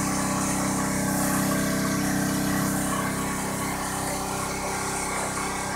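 Small portable generator running steadily while it powers a battery charger on its highest charging setting.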